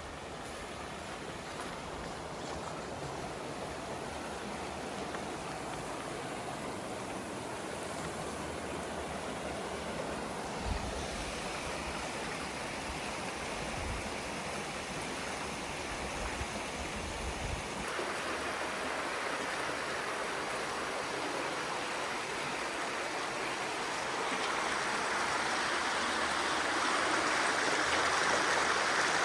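Running water of a stream, a steady rushing that changes abruptly twice, about a third and two-thirds of the way in, and grows louder near the end.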